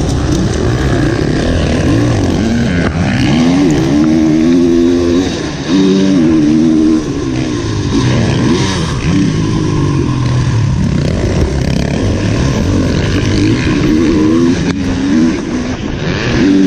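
Onboard sound of a motocross dirt bike's engine under hard riding, its pitch rising and falling again and again with the throttle.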